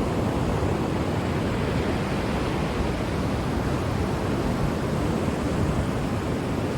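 Ocean surf washing onto a shore, heard as a steady, even rush with no separate wave crashes standing out.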